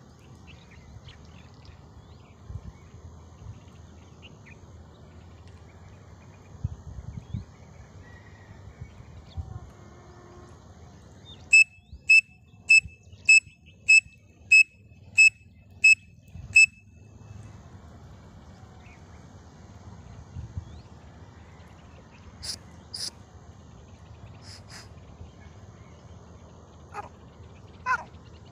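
A pen cap blown as a whistle to imitate a grey francolin (teetar) call: a run of about ten short, shrill notes of one pitch at an even pace, roughly two a second, then it stops.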